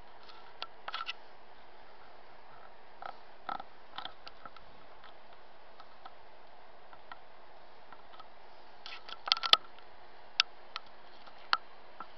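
Handling noise on a handheld camera: scattered small clicks and taps over a steady hiss and faint hum, with a quick cluster of sharper clicks about nine seconds in and single clicks near ten and a half and eleven and a half seconds.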